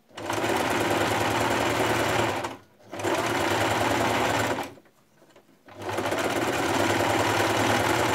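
Electric sewing machine running at a steady speed, straight-stitching stretched elastic onto fabric, in three runs: a brief stop after about two and a half seconds, then a pause of about a second near the middle before it starts again.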